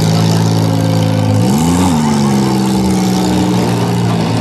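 Demolition derby car engines running hard, one revving up and back down about a second and a half in.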